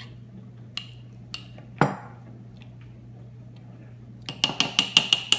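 Metal spoon clinking against a glass mason jar as yogurt is spooned in: a few single clinks and one duller knock, then a quick run of about eight loud clinks near the end.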